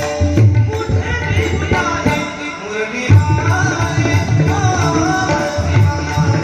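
Marathi gaulan bhajan: a sung devotional melody over dense pakhawaj and tabla strokes, with a regular high ticking that keeps the beat.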